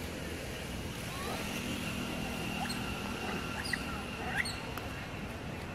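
A few short, high-pitched animal squeaks and chirps, the sharpest two in the second half, over a steady outdoor background hum.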